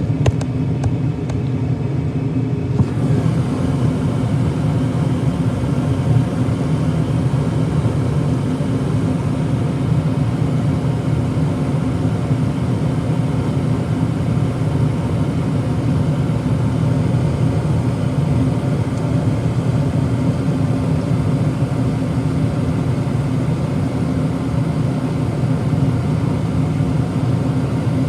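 Furnace blower drive motor running with a steady hum and rumble.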